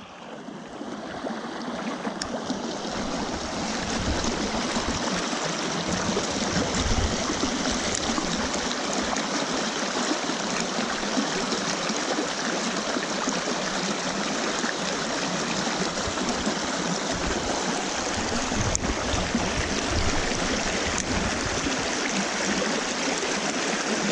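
Small creek running and splashing over rocks: a steady wash of moving water that swells up over the first few seconds, then holds even.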